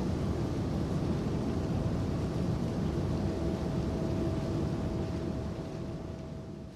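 Steady outdoor background rumble, with a faint steady hum joining about a second and a half in; it all fades out near the end.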